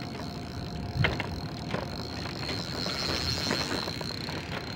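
Spinning reel's drag giving a steady high-pitched scream as a big fish pulls line off the spool, with a sharp knock about a second in and a few lighter clicks of the rod and reel being handled.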